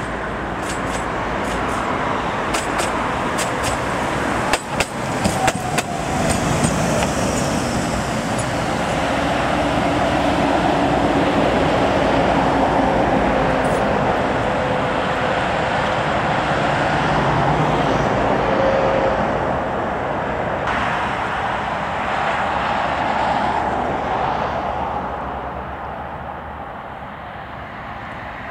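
A tram running, with a quick series of clicks and knocks in the first few seconds. Then comes a steady rumble with a faint whine that slowly falls in pitch; it grows louder in the middle and eases off toward the end.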